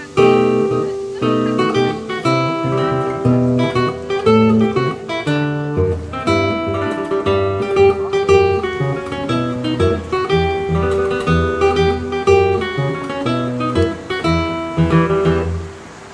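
Background music: an acoustic guitar playing plucked notes and chords, fading out near the end.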